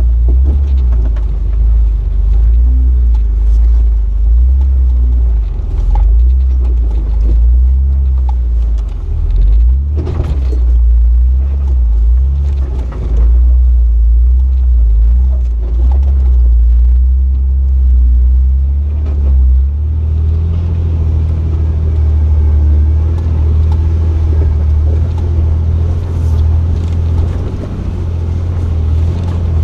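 Jeep Wrangler LJ engine running at low crawling speed over rocks, a steady low rumble whose pitch steps up slightly about two-thirds of the way through, with a few knocks from the trail.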